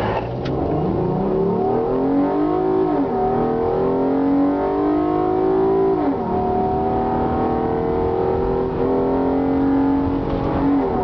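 2011 Lincoln MKX's 3.7-litre V6 under full-throttle acceleration from a standstill, heard from inside the cabin. The engine note climbs, drops at automatic upshifts about three and six seconds in, then climbs slowly again and drops once more near the end.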